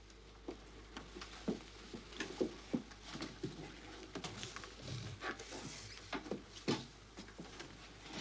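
Faint, scattered knocks, taps and rustles of people moving about in a small room, irregular and unevenly spaced.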